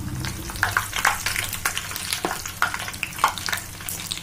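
A bhatura deep-frying in hot oil in a kadhai, sizzling with many short, irregular crackling pops, while a perforated steel slotted spoon presses it down in the oil.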